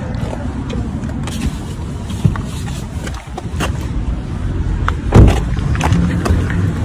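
Someone getting out of a car and walking off: door and handling clicks, and one loud thump about five seconds in, over a steady low rumble.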